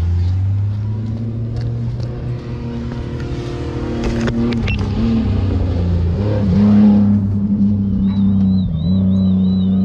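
A motor vehicle engine running steadily with a low drone, getting a little louder and higher from about six seconds in. A high warbling tone joins it near the end.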